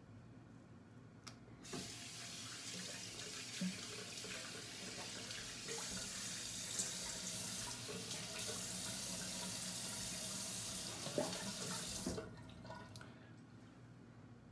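Bathroom sink tap running as a steady hiss of water for about ten seconds. It starts a couple of seconds in and is shut off a couple of seconds before the end, with a few small knocks along the way.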